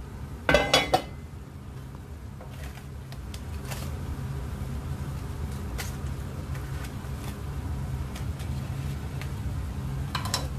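A few loud metal clanks about half a second in as the iron tawa covering the pan is lifted off, then a steady low hum with occasional light taps while the foil cup of charcoal is taken out of the mutton.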